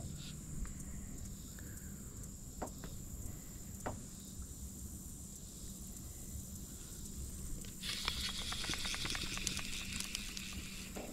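Fly reel clicking rapidly for about three seconds near the end, its drag ratcheting as line moves on or off the spool with a hooked carp on. A few single ticks come earlier.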